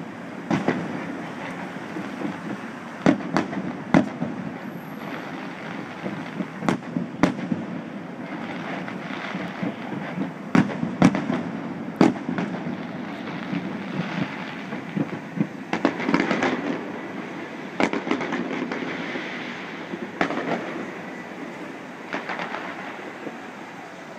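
Fireworks display: a string of sharp bangs from shells bursting at irregular intervals, with crackling and a rumbling wash of noise between them.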